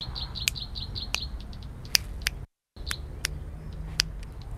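Finger snaps heard through a Boya BY-XM6 S2 wireless clip-on microphone: sharp clicks about every half second to a second, with a bird chirping rapidly through the first second. The sound cuts out completely for a moment about halfway through, a wireless dropout near the limit of the transmitter's range at about 50 metres.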